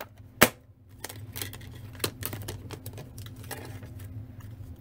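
Hands handling die-cutting plates and a cut die: one sharp clack of the cutting plates about half a second in, then small scattered clicks and paper rustling as the cut cardstock is worked free of the die.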